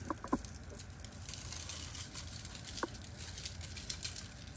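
Dry seasoning shaken from a shaker, its granules pattering lightly onto raw chicken wings in an aluminum pan. A few sharp clicks come in the first half-second and one more about three seconds in.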